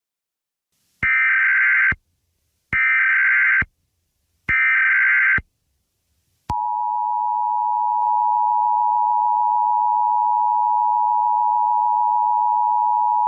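Emergency Alert System signal: three short buzzing bursts of SAME header data, about a second each, followed by the steady two-tone EAS attention signal, which starts about halfway through and holds.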